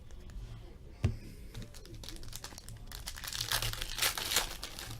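Crinkling and rustling of trading cards and their plastic or foil packaging being handled, with a dense patch of crackle past the middle and one sharp knock about a second in.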